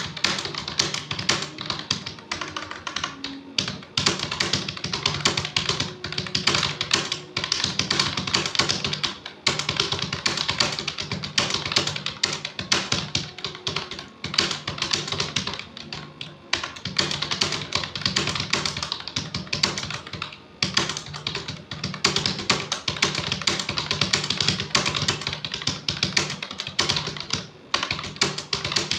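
Fast, continuous typing on a computer keyboard, a rapid run of keystroke clicks broken by a few brief pauses.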